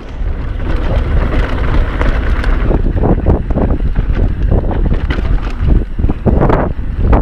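Wind buffeting the microphone of a GoPro on a mountain bike riding a dirt trail, with a steady rumble of tyres and the bike rattling and knocking over bumps, the knocks coming thick and fast from about three seconds in.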